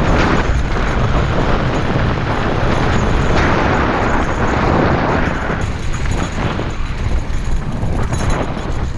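Wind buffeting the camera's microphone over the crunch and rattle of mountain-bike tyres rolling fast over loose rock and gravel on a descent. The crunch eases a little past halfway as the surface turns to smoother dirt.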